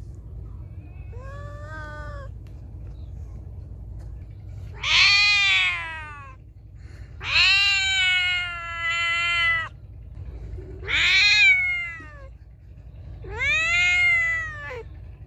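Feral cat meowing loudly: a faint short meow about a second in, then four loud drawn-out meows a second or two apart, the second the longest.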